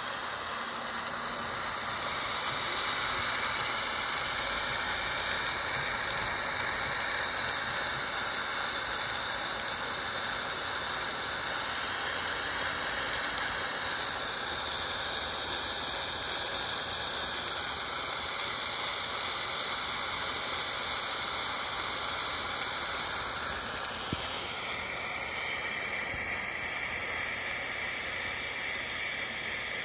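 Miniature live-steam model traction engine running: a steady hiss of steam and burner with a light mechanical clatter from its small cylinders and gearing. The hiss shifts in tone near the end.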